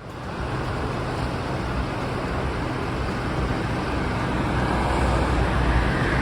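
Steady road and engine noise of a car driving, a low rumble under an even hiss.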